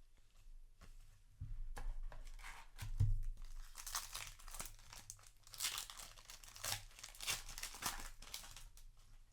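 A trading-card booster pack's foil wrapper being torn open and crinkled by hand, with a couple of soft knocks from handling in the first few seconds and the crinkling densest in the second half.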